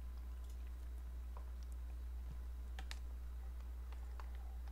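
A few faint, scattered clicks and light handling noises from a foil ramen pouch and a ceramic bowl being picked up to drink the broth, over a steady low electrical hum.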